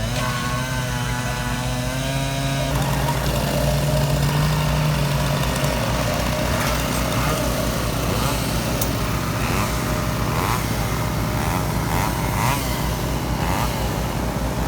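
Chainsaws running while cutting logs into firewood. A steady pitched engine note gives way, about three seconds in, to a rougher, noisier run.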